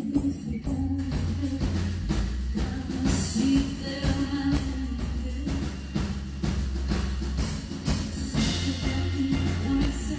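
Live rock band playing: electric guitar and drum kit over a heavy low bass, with a woman singing.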